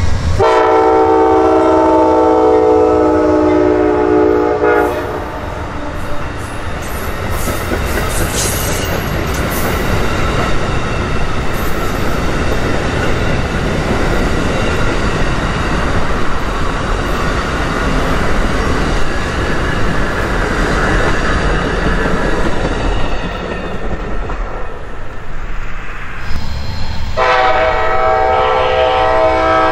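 Amtrak passenger train's locomotive air horn sounding a multi-note chord for about five seconds, then the rumble and wheel-on-rail noise of the train rolling past, with a few sharp clicks as it crosses the junction. A horn sounds again near the end.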